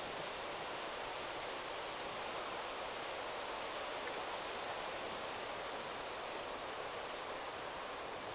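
Wind rustling steadily through forest trees, an even hiss of moving leaves with no distinct bird calls.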